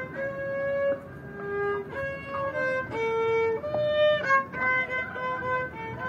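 A violin playing a melody, mostly long held notes with a few quicker notes in between.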